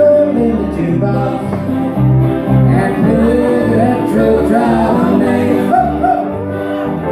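Live country music: strummed acoustic guitar with a pedal steel guitar sliding between sustained notes over a steady pulsing low line.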